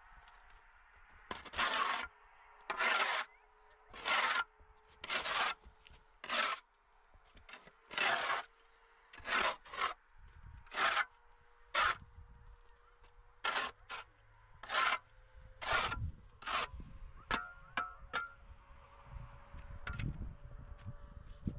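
A shovel scraping snow off a concrete step and ground in repeated strokes about once a second, the last few shorter and fainter.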